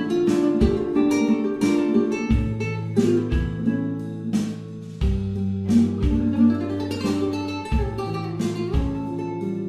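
Background music: acoustic guitar with strummed chords and plucked notes in a steady rhythm.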